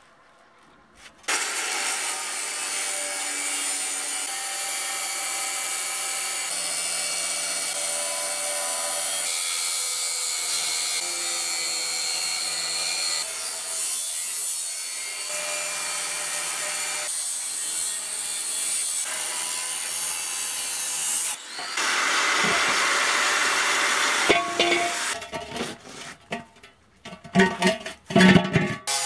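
Angle grinder with a cut-off disc cutting through the steel rim of an old rusty combine harvester wheel: a steady screeching cut that starts about a second in and runs for about twenty seconds, getting louder for a couple of seconds before it stops. Near the end, loud irregular metal clanks and knocks.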